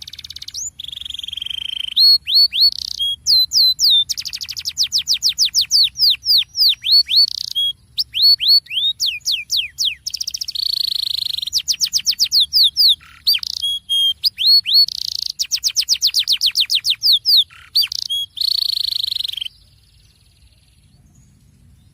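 Canary singing a long, fast song of rapid trills: runs of repeated downward-sweeping whistled notes, broken by buzzy rolls, ending near the end.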